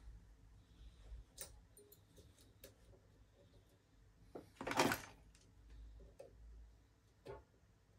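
Faint, scattered light clicks and taps of small tools and phone parts being handled during an iPhone XR screen repair. There is one louder, brief rustle or scrape about five seconds in.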